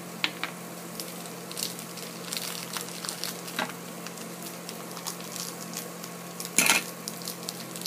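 Small plastic toy packaging handled and pulled open by hand: scattered light clicks and crinkling rustles, with one louder crackle about six and a half seconds in.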